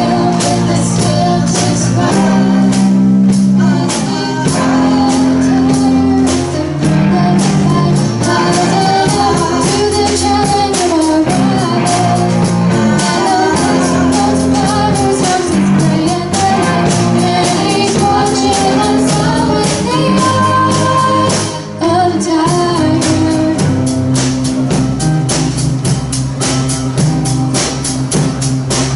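Student garage rock band playing live, with a singer over drums and sustained bass and guitar notes that change every second or two.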